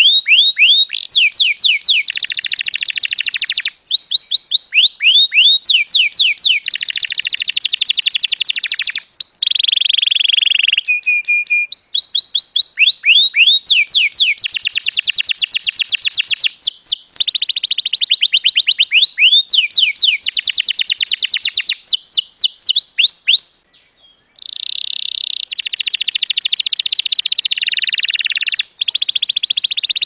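Male canary singing a long song of fast trills, each phrase a rapid run of high repeated notes that sweep down in pitch. There is a pause of about a second late on before the song resumes.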